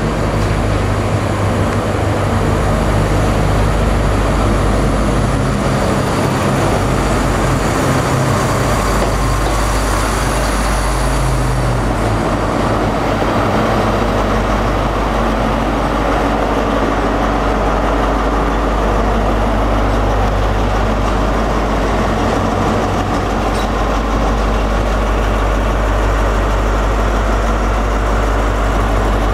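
CrossCountry HST Class 43 power car's MTU diesel engine running as the train moves slowly past along the platform: a steady, loud deep drone whose low note shifts about twelve seconds in.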